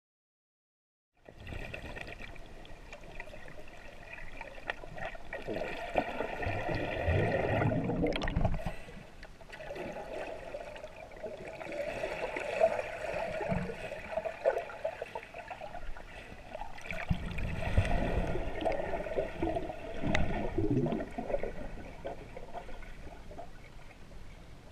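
Water splashing and sloshing as swimmers move through the water, picked up by a GoPro in its waterproof housing. It starts about a second in and swells louder twice.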